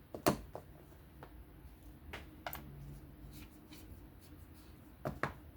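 Small clicks and taps of a folding knife's parts and tools being handled during disassembly and reassembly: a sharp click just after the start, a few lighter ones in the middle, and a quick double click near the end.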